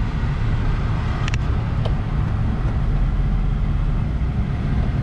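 Steady low road and engine rumble of a car heard from inside the cabin while driving, with a couple of faint clicks about a second and a half in.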